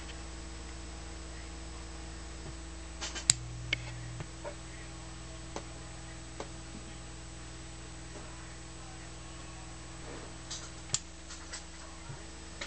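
Sharp RP-107C linear-tracking turntable mechanism working between tracks: a few sharp clicks about three seconds in, then a small motor hum that runs until about eleven seconds in and ends with another cluster of clicks, over a steady low electrical hum.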